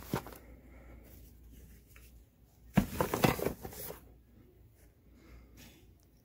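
Hands packing items into a fabric Husky rolling tool bag: rustling and scraping of things pushed in among the pockets, with a short knock near the start and a louder burst of handling noise lasting about a second in the middle.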